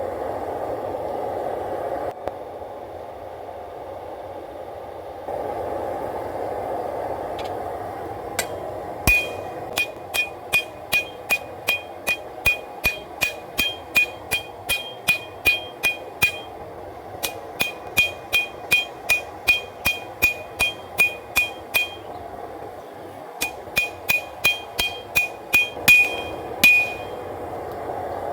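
Hand hammer striking hot W-2 steel on an anvil, drawing out the top of a kitchen-knife blade: steady runs of about two blows a second, each with a high anvil ring, broken by two short pauses. The forced-air burner of a propane forge runs steadily underneath.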